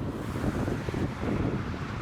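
Gusting storm wind buffeting the microphone, a low, fluttering rumble that grows a little louder near the end.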